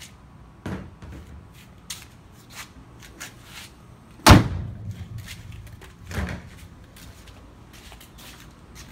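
A car hood is slammed shut with one loud thump about four seconds in. A few lighter knocks and clicks come before and after it.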